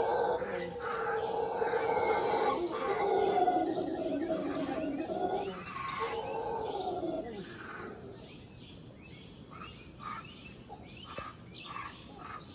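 A troop of howler monkeys howling together in their deep, drawn-out morning chorus, which falls in pitch and dies away about seven seconds in. Birds chirp in short calls after that.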